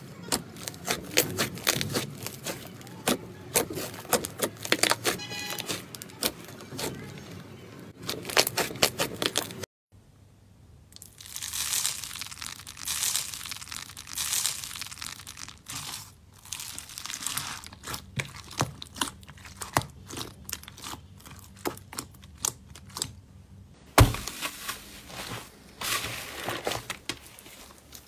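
Slime being pressed, squeezed and stretched by hand, giving dense crackling and popping clicks. The texture changes abruptly twice, about ten seconds in and near the end, as different slimes are played with.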